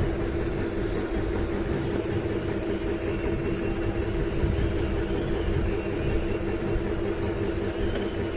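A steady mechanical hum with a constant low-pitched drone, unchanging throughout.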